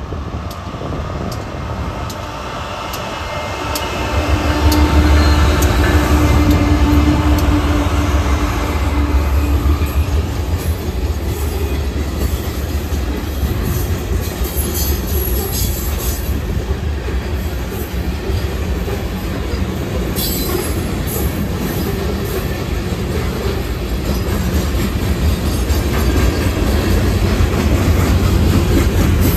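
Freight train passing close. Its BNSF diesel locomotives rumble by with a steady engine hum for the first several seconds. Then a long string of open-top hopper cars rolls past, with wheels clicking over the rail joints and occasional high wheel squeal.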